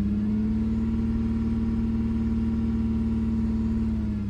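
2005 Lexus ES 330's 3.3-litre V6 held steady at raised revs, with a loud, deep exhaust drone coming from the rear of the car. The owner has been told it is one of the catalytic converters, and he suspects a muffler leak.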